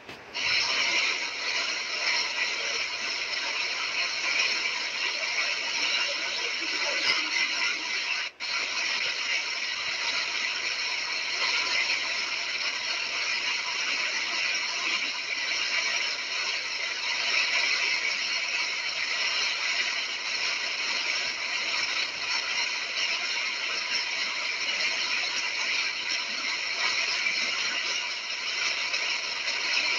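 Heavy rain pouring steadily, a dense even hiss. There are two very brief cutouts, one right at the start and one about eight seconds in.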